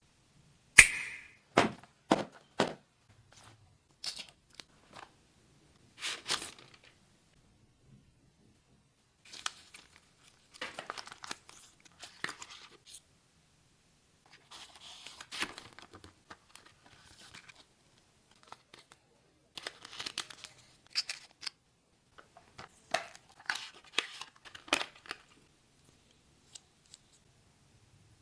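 Phone packaging being unboxed: tearing, crinkling and handling noises that come and go in short bursts, with a few sharp clicks in the first few seconds, the first of them the loudest.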